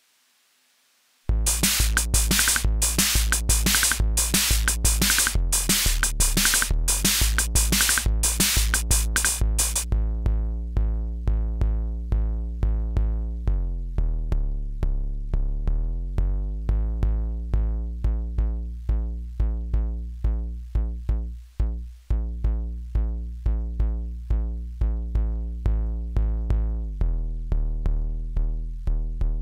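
Akai Rhythm Wolf drum machine playing a steady electronic pattern. It starts about a second in with kick and bright hi-hats over a pitched synth bass line. The hi-hats drop out about a third of the way through, leaving the kick and the bass line, which shifts pitch a few times.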